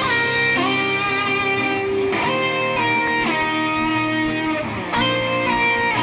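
Background music led by electric guitar, with held notes that change pitch every second or so.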